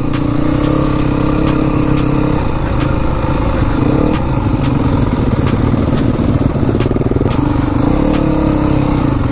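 Enduro dirt bike engine running under the rider on a trail, heard close up, at a fairly even pace; the revs drop and waver for a few seconds in the middle, then pick up again near the end, with regular light clicks over the engine.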